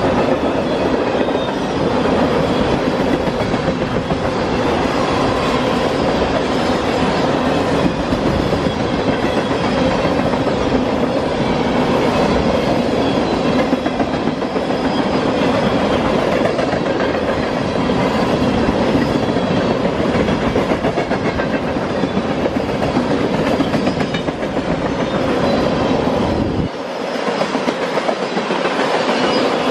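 Train passing close by, with a steady rumble and the clickety-clack of its wheels on the rail joints. The deep rumble drops away near the end while the higher wheel noise carries on.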